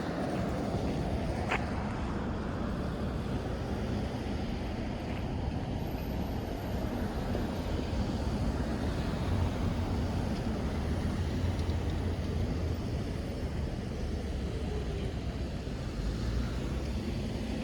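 City street traffic: a steady mix of passing cars' engines and tyres, with a low rumble that grows louder around the middle.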